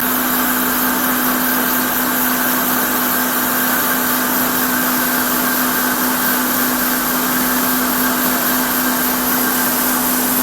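Electric blender running steadily: a constant, loud motor noise with a steady hum that does not change.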